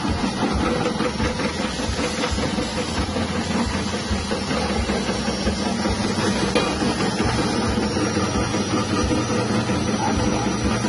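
Electric potato-chip slicing machine running steadily, its 180-watt motor turning the cutting blade with a constant hum as potatoes are fed in and sliced.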